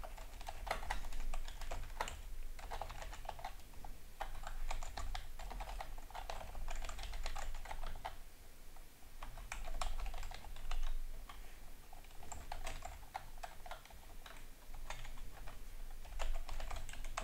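Typing on a computer keyboard: quick runs of key clicks broken by short pauses.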